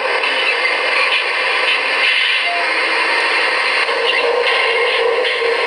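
Tonka dump-truck toy lamp's built-in sound effect playing a truck engine running, thin and tinny from its small speaker, with no deep bass.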